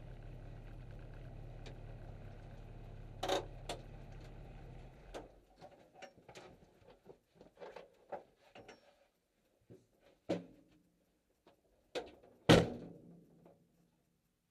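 Mini race car's engine idling and then switched off about five seconds in. Clicks and clunks follow as the driver climbs out of the cabin, and a loud door slam comes near the end.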